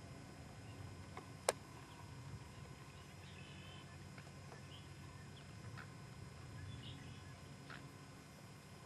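Quiet outdoor ambience near reeds and water: a faint low rumble with scattered short bird chirps, and one sharp click about a second and a half in.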